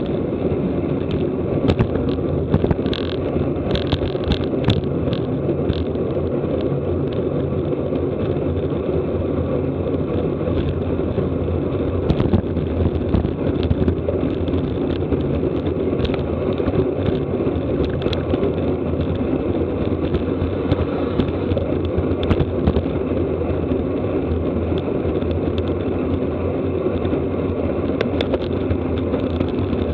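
Steady rush of wind and road noise on a camera riding on a racing bicycle at race speed, with scattered sharp clicks, most of them a few seconds in.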